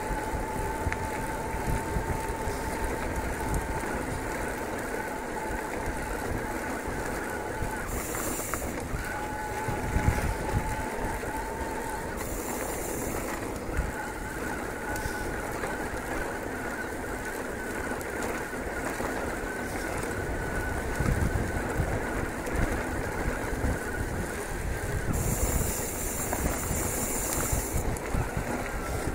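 Electric mountain bike ridden over a rough gravel and stone track: a steady rumble of tyres and rattle, with the mid-drive assist motor whining steadily while pedalling. The whine drops out three times, about a third of the way in, near the middle and near the end. Each time a short high buzz of the rear hub freewheeling takes its place.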